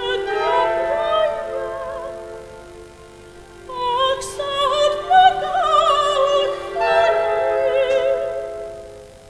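Operatic soprano singing with a wide vibrato over an orchestra holding a steady note. Two phrases: the first fades away after a couple of seconds, and the second begins about four seconds in and dies away near the end.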